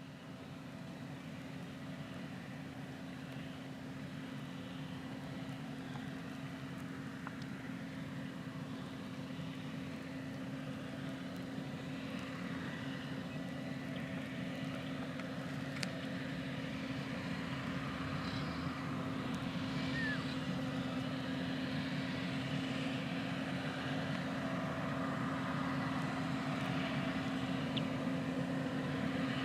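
Case IH Magnum 380 CVT tractor's diesel engine running steadily under load while it pulls a 2140 Early Riser no-till planter, with a constant hum that grows gradually louder as the rig approaches.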